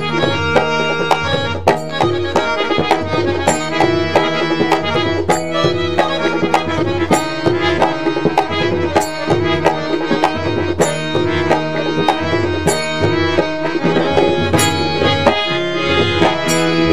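Instrumental interlude of Indian devotional music: tabla playing a steady rhythm, the low drum sliding in pitch on its bass strokes, over a sustained drone and a melody line.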